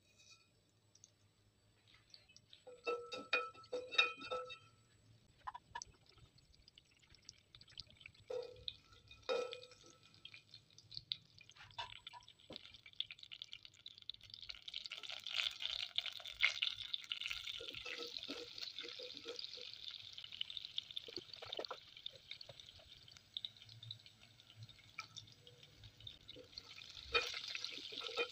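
Cumin seeds sizzling and crackling in hot oil in a pot, the fine crackle starting about halfway through and growing steady. A few light clinks with a short ring come in the first ten seconds. Near the end the sizzle swells as chopped green chillies go in and are stirred with a spatula.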